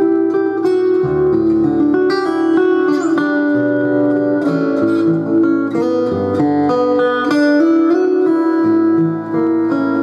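Steel-string acoustic guitar played with quick melodic notes over changing bass notes, heard through a Fishman Rare Earth Blend soundhole pickup with its magnetic humbucker and built-in condenser microphone blended together.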